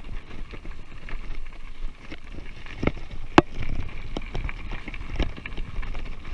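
Specialized Riprock 20-inch kids' mountain bike rolling over a gravel path: tyre crunch and rumble with the bike rattling and clicking over bumps, and a sharp knock about three and a half seconds in. Wind buffets the microphone underneath.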